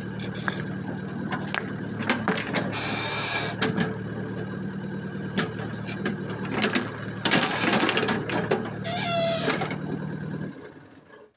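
Excavator's diesel engine running steadily as its hydraulic bucket presses down on a coconut, with scattered sharp cracks and creaks and a short squeal near the end. The engine sound stops about ten and a half seconds in.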